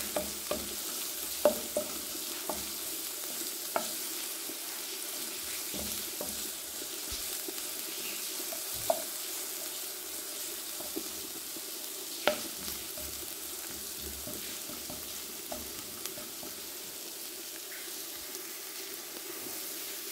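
Sliced red onion and garlic sizzling steadily in hot olive oil in a frying pan, stirred with a wooden spatula that knocks sharply against the pan a few times.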